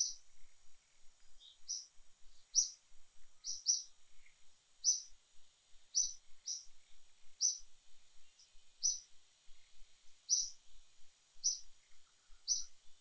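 A bird chirping in short high notes, singly or in quick pairs about once a second, over a steady high-pitched hiss.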